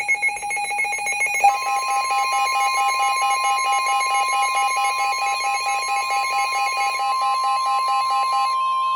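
Emergency Alert System attention tones: a fast-pulsing electronic beeping, joined about a second and a half in by a steady high alarm tone. The steady tone is the alert that precedes a broadcast warning.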